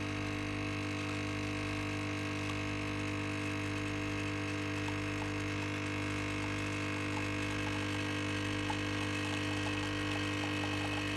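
DeLonghi Nespresso machine's pump humming steadily as it brews a mug-size coffee, with the milk frother spinning at the same time.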